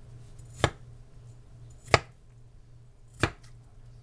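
Knife chopping through watermelon down onto a cutting board: three sharp strikes about a second and a quarter apart.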